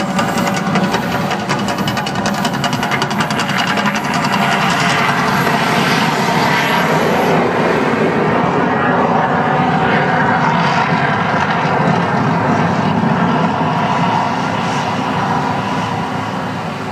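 The Mirage volcano attraction erupting: a loud, continuous roar from its eruption effects, with a rapid crackle in the first few seconds. The roar eases slightly near the end.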